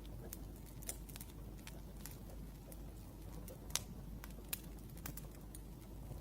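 Wood fire crackling: irregular small pops and clicks, with a couple of sharper pops near the middle.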